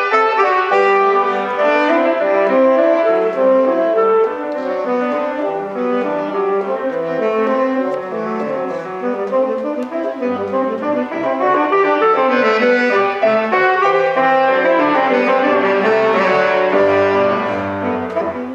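Selmer Series II tenor saxophone with a Selmer C** mouthpiece playing a quick, busy line of running notes, accompanied by grand piano, whose deeper bass notes come in about halfway through.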